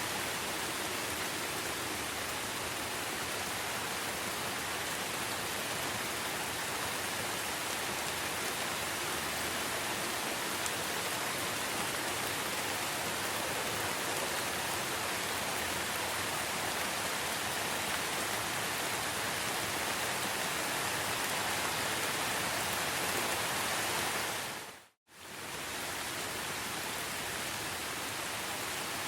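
Steady rain falling, an even hiss of drops. Near the end it fades out to silence for about a second, then comes back in.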